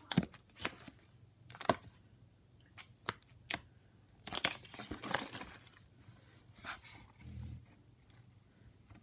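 A folded paper collector's leaflet being handled and unfolded, crinkling and crackling in short bursts, with a denser run of crackling about four to five seconds in.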